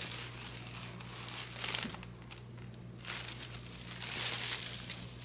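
Packaging crinkling and rustling as a t-shirt is handled, in irregular rustles of uneven strength.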